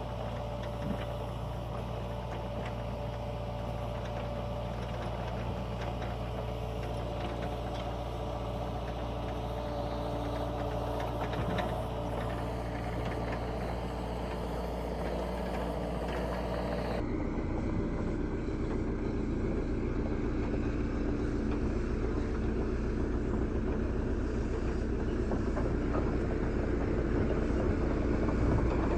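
Excavator engine running steadily. About 17 seconds in, the sound changes abruptly and becomes duller, with the engine still running.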